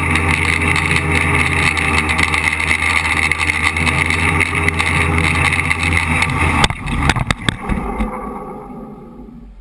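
Tricopter's electric motors and propellers running with a steady whine, heard from the onboard camera. About two-thirds of the way in come several sharp knocks as it touches down, and the motor sound winds down and fades away.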